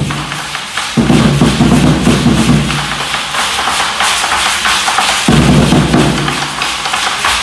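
Aztec dance drumming on a tall upright wooden drum, played in a driving beat, over a dense, fast rattling of the dancers' leg rattles and stamping feet on a wooden floor. The heavy drum sound drops away at the start and again for a couple of seconds in the middle while the rattling carries on.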